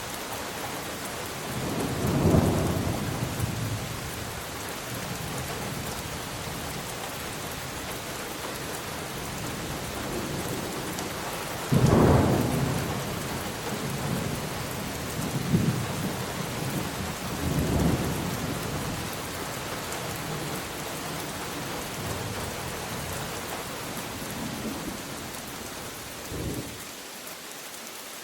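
Steady rain with a thunderstorm rolling through: a swell of thunder about two seconds in, a sudden loud clap with a long rumble near the middle, then several smaller rumbles.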